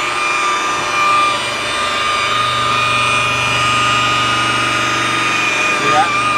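A buffer (polisher) running steadily with a high motor whine as its spinning pad cuts compound into a boat's gelcoat, with a slight wobble in pitch near the end.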